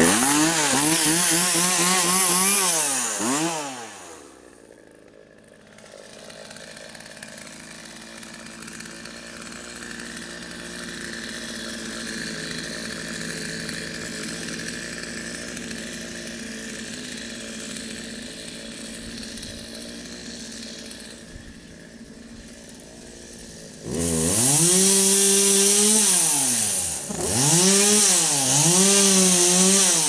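Electric chainsaw running at full speed, then its whine gliding down and stopping as the trigger is let go, with no idle left afterwards. A fainter steady sound follows. Near the end the saw starts up again with a sudden jump in loudness, its pitch sagging and recovering several times as it cuts into brush.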